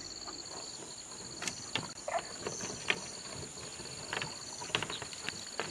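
A wet green mesh fish trap is hauled up out of the pond into a plastic boat, making a scattering of short knocks and water sounds. Under it runs a steady, high, pulsing insect trill.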